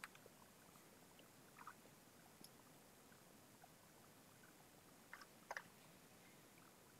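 Near silence: room tone, with a few faint short clicks.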